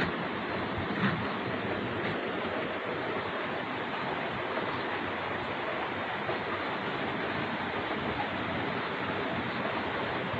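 A heavy thunderstorm downpour with wind: a steady rushing noise, with a single sharp tick about a second in.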